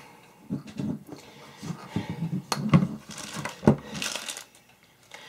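Handling noises: several soft knocks and a few sharp clicks, with a rustle of a small plastic bag of screws about three seconds in.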